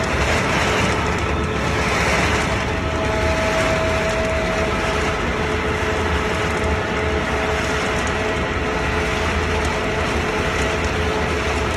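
Wood pellet production line machinery running steadily: a loud continuous mechanical din with a low hum and two steady held tones.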